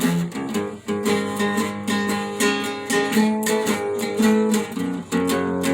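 Acoustic guitar strummed in a steady rhythm, ringing chords accompanying a song between sung lines.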